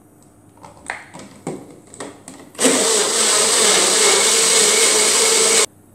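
A few knocks and clicks as the Nutribullet is handled, then the Nutribullet blender runs loud and steady for about three seconds, liquidizing a banana in coconut milk, and cuts off suddenly.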